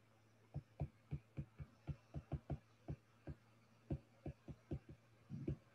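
Faint, irregular tapping of a stylus on a tablet screen during handwriting, about three or four short taps a second.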